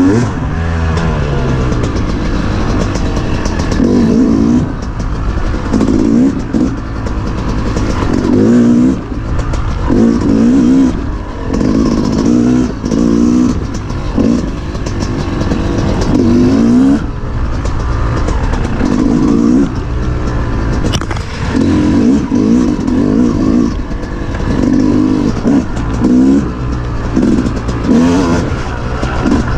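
Off-road dirt bike engine revving hard and dropping back again and again as it is ridden over a trail, the throttle opening in short surges every second or two.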